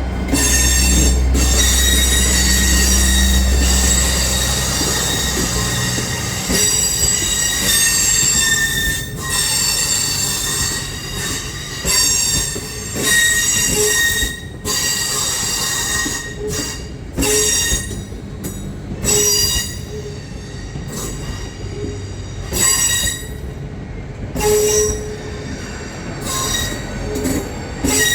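A train running slowly on the rails with its wheels squealing: high-pitched squeals come and go in repeated bursts. A low engine rumble underneath stops about six seconds in.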